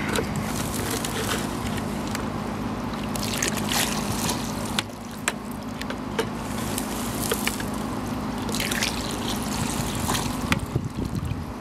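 Homemade PVC hand dredge (hand-operated suction tube) sucking up muddy water and gravel from a bucket, then pushing it out into a gold pan: water gurgling, trickling and splashing, with scattered sharp clicks.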